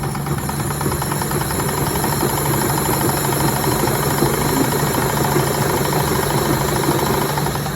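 Treadle sewing machine running fast with a rapid, even clatter while winding thread onto the bobbin; the clatter stops abruptly near the end, leaving a steady low hum.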